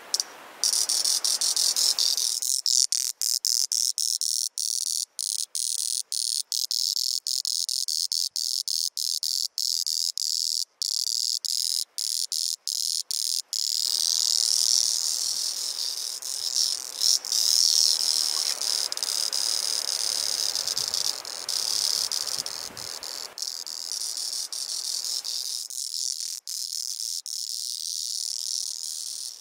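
A male two-spotted singing cicada, Auritibicen bihamatus, singing: a loud, high buzzing drone made by its tymbals. For about the first half it breaks off in many brief gaps, then it runs on unbroken.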